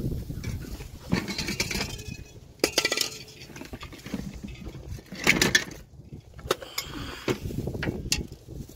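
Loose metal parts clinking, knocking and scraping as they are handled, in irregular bursts with the loudest clatter about halfway through.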